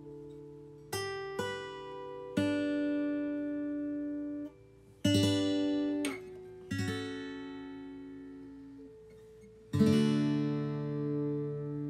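Acoustic guitar music: slow strummed chords, each left to ring out and fade.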